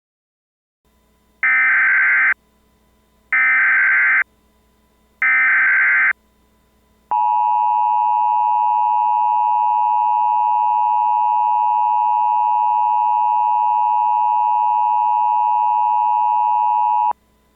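Emergency Alert System tones: three short bursts of SAME header data, each about a second long and a second apart, then the two-tone attention signal held steady for about ten seconds and cut off sharply. Together they mark the start of a broadcast emergency alert.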